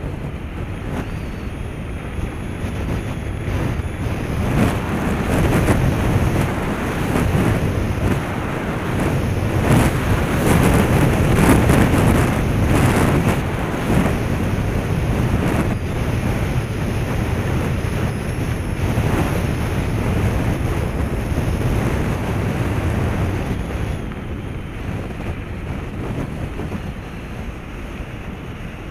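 Wind rushing over the microphone of a moving Contour action camera, mixed with the rumble of travelling over a gravel road. It is louder in the middle, with no engine heard.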